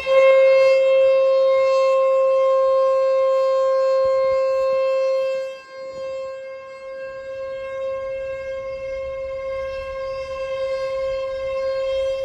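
ASC T-121 outdoor warning siren sounding a steady single-tone alert signal, stuck on: a malfunction that kept it running for ten minutes instead of the usual one-minute test. Its loudness drops sharply a little past halfway through, and it carries on somewhat quieter.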